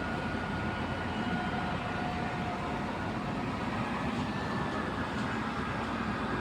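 Excavator engine running steadily, with a faint high whine held over the engine noise.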